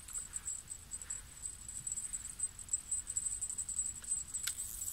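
Crickets or grasshoppers chirping steadily as a high, pulsing buzz. About four and a half seconds in there is one sharp click, followed by a brief high hiss, while a feeder rod is being cast.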